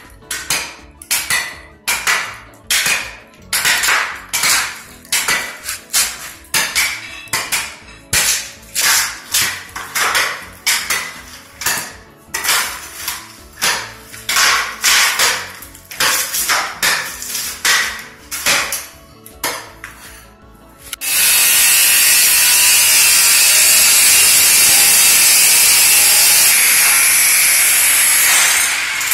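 A sharp long-handled steel floor scraper (talacho) chopping into hardwood flooring boards to break them loose, in rhythmic strikes nearly two a second. About two-thirds of the way in the strikes stop and a loud, steady hiss takes over.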